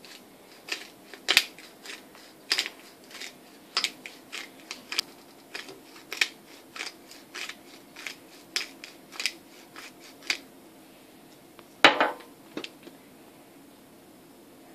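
Hand-twisted pepper mill grinding black peppercorns: a series of short crunching clicks, about two a second, that stops after about ten seconds. A louder knock follows a couple of seconds later, with two lighter taps just after.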